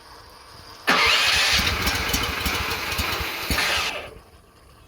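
Kohler gasoline engine on a hot-water pressure washer being cranked over on its first cold start. It starts suddenly about a second in, runs for about three seconds and stops without the engine catching.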